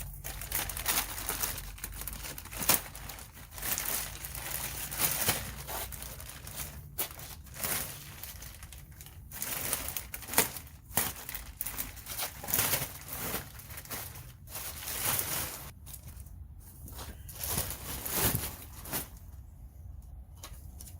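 Packaging crinkling and rustling in irregular handfuls as the wrapping is pulled off a newly rebuilt engine.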